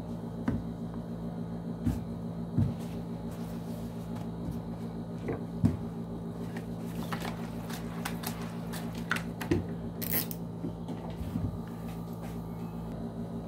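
Cloth being handled and laid out on a worktable: scattered soft knocks and rustles, with a short sharp hiss about ten seconds in, over a steady low hum.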